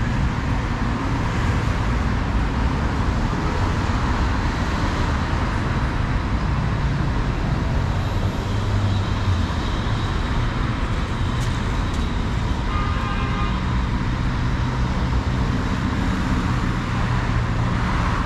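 Steady city road traffic: cars, taxis and a city bus passing, a continuous mix of engine hum and tyre noise, a little heavier in the middle. About two-thirds of the way through comes a short high-pitched sound.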